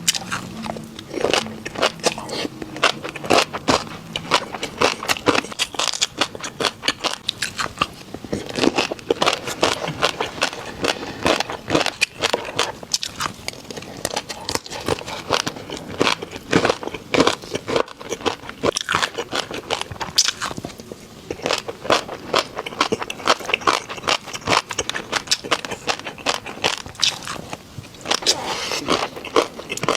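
Close-up chewing of a crunchy snack: a person biting and crunching with rapid, uneven crackles and snaps, over and over.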